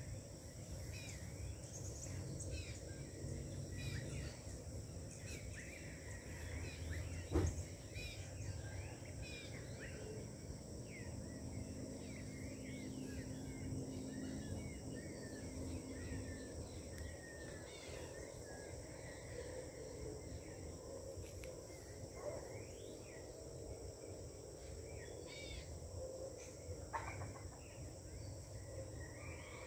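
Dawn chorus of many birds chirping and calling over one another, with a steady high insect hum underneath. A single sharp knock sounds about seven seconds in.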